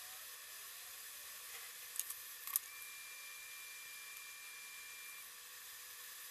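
Faint steady hiss, with a few light clicks about two seconds in and a thin, high steady tone that holds for about two and a half seconds after them.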